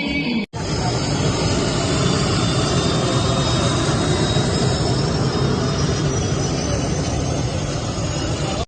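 Jet aircraft flying over, a BAE Hawk trainer of the aerobatic team: a loud, steady rushing roar with a faint high whine that slowly rises. It begins abruptly about half a second in, after a brief snatch of music.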